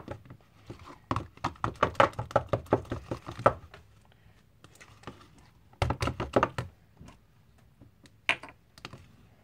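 Spoon knocking and clicking against a bowl while slime is stirred, in a quick run of sharp taps for a couple of seconds, then a shorter burst about six seconds in and one more tap near the end.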